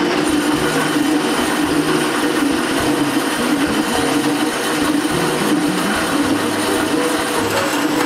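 Vertical bandsaw cutting through a bent metal exhaust tube, a steady grinding rasp as the tube is fed into the blade.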